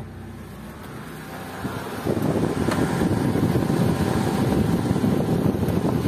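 Chevy's electric radiator cooling fan running with the engine idling, a steady rush of air that gets louder about two seconds in. The fan has been switched on at about 95 °C by a newly fitted fan temperature switch, its normal cut-in point.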